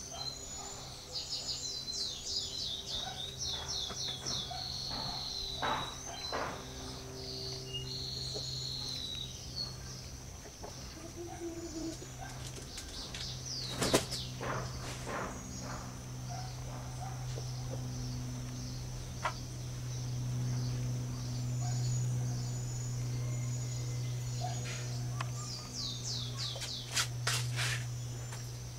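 Small birds chirping and singing, with runs of quick, high, falling notes at the start and again near the end, over a steady low hum. A few sharp clicks, the loudest about 14 seconds in.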